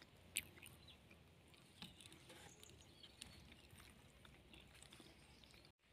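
Near silence: faint outdoor background with a few soft clicks and ticks, the sharpest about half a second in.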